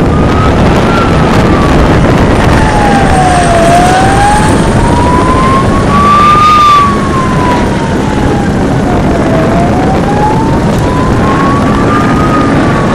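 Emergency siren wailing slowly, its pitch rising and falling about once every six seconds, over a loud, steady rumbling noise.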